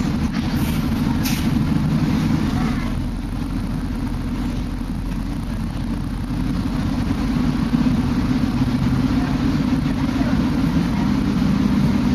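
Shuttle bus engine and drivetrain heard from inside the cabin as the bus pulls away from a stop: a steady low rumble that eases off for a few seconds and picks up again. A brief click sounds about a second in.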